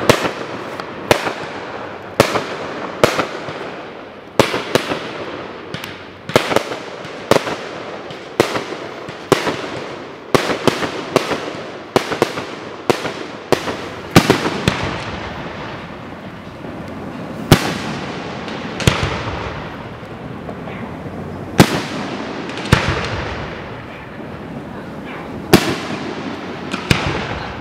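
Aerial firework shells bursting in a long series of sharp bangs, about one a second for the first fourteen seconds, then more widely spaced.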